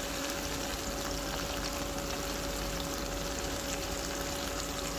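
Stir-fried winged beans sizzling steadily in oil in a frying pan, an even hiss with a faint steady hum beneath it.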